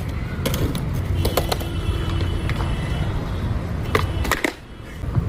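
A skateboard kickflip: the wheels rumble over pavement with several clacks, then come sharp pops of the tail and board. The rolling stops for about half a second while the board is in the air, and a clack comes as it lands.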